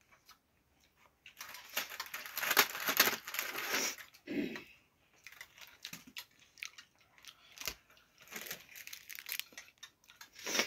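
Snacks being handled and eaten: crinkling and crunching noises with scattered sharp clicks, loudest in a stretch from about a second and a half in to about four seconds.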